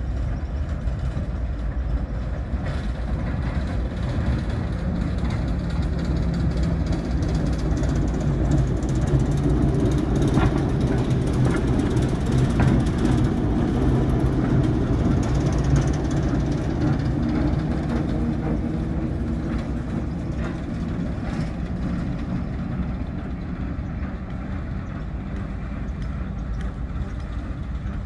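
Class 08 diesel shunter's English Electric six-cylinder engine running steadily as the locomotive moves along the track at low speed, growing louder as it passes close about halfway through, with a few wheel clicks on the rails, then fading as it moves off.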